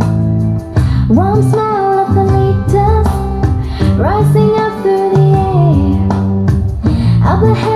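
A pop ballad playing: a female voice sings long held notes, sliding up into several of them, over bass and guitar, played back through a DIY videoke speaker set-up.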